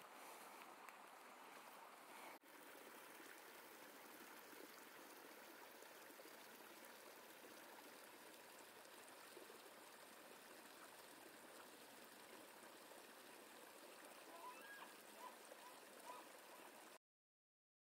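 Near silence: a faint, steady rushing hiss of outdoor ambience, with a few faint short chirps near the end, before the sound cuts off to dead silence.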